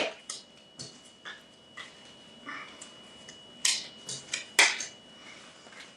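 Small paper playing cards being handled and dealt into stacks on a table: scattered soft slaps and flicks, with a cluster of sharper slaps about four seconds in.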